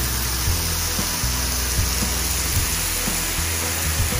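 Sliced filet mignon sizzling on a hot flat griddle, a loud, steady hiss.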